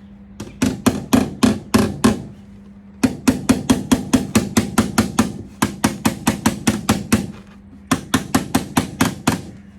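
Hammer tapping on the VW Caddy's steel repair panel: rapid ringing metal strikes, about four a second, in three runs with short pauses between them, knocking the panel flush.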